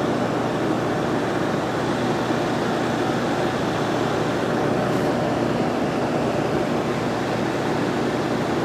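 Late-1960s Sears Coldspot 6,000 BTU window air conditioner running: a steady rush of air from its fan over a low electrical hum, unchanging throughout.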